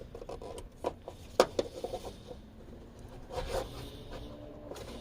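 Hands working an electrical connector loose: a few sharp plastic clicks, the loudest about a second and a half in, with rubbing and a rustle around three and a half seconds.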